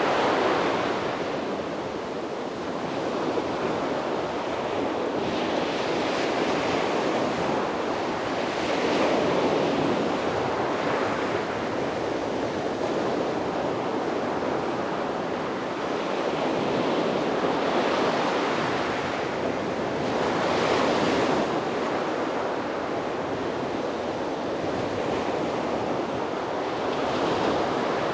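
Sea waves breaking and washing onto a beach, a steady surf wash that swells every few seconds as each wave comes in, with some wind on the microphone.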